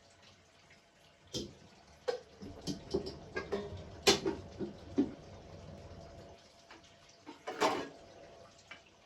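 Household chores at a sink: scattered clicks and knocks of things being handled, with water running or splashing, the sharpest knocks about four seconds in and near the end.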